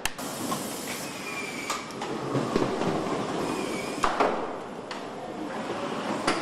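Car assembly-line factory noise: a steady machinery din with scattered sharp clicks and knocks of plastic dashboard parts being handled and fitted, a close pair of them about four seconds in.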